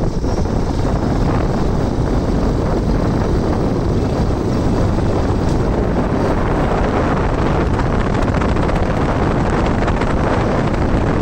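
Wind buffeting a phone's microphone on a moving motorcycle, with the motorcycle running underneath; a steady, unbroken rush.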